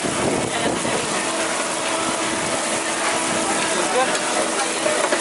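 Burger patties, eggs and ramen noodle buns sizzling on a hot flat-top griddle, a steady crackling hiss, with a steady hum and voices in the background.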